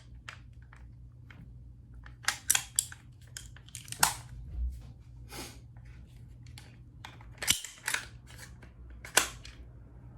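Sharp metal clicks and clacks, a dozen or so at uneven spacing, from an AR-15 pistol's Sylvan Arms folding stock adapter being worked open and handled.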